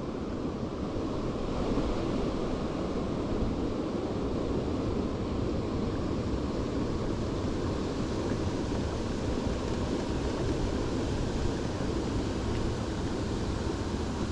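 Steady rushing noise of wind and water, even throughout with no distinct knocks or tones.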